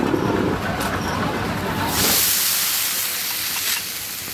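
Water on a hot flat dosa griddle hissing into steam as a wet cloth wipes it. The hiss starts suddenly about halfway through and slowly fades. This is how the griddle is cooled and cleaned before the next dosa is spread.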